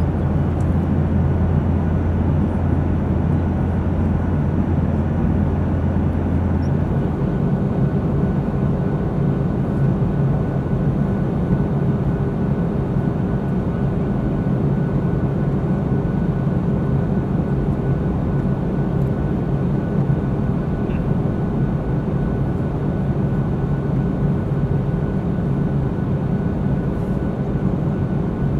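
Steady cabin noise inside an airliner in flight: the drone of the engines and the rush of air past the fuselage. A low hum in the drone drops out about seven seconds in and a slightly higher steady tone takes over.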